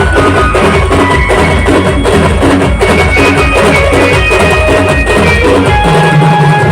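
Band music: a steady, dense drumbeat under a melody of held notes stepping up and down.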